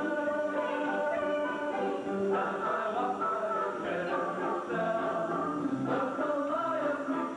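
Swing choir singing in harmony, holding chords that change every second or so.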